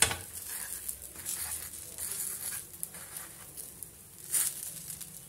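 Metal ladle dabbing and scraping on a hot iron dosa griddle as small holes are poked into pearl-millet adai batter, over a faint sizzle. Several short scrapes, the strongest about four seconds in.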